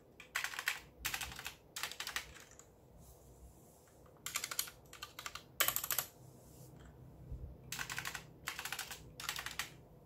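Typing on a mechanical keyboard in short rapid bursts of key clacks, with brief pauses about a third of the way in and again past the middle.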